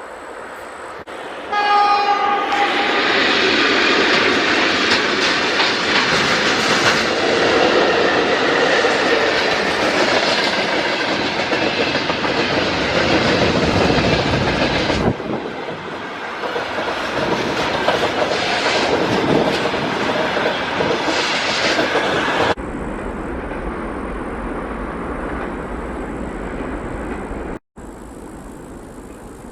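A train passing close by, its wagon wheels clattering over the rails for about twenty seconds, with a short horn blast near the start. The clatter then drops to a quieter low rumble.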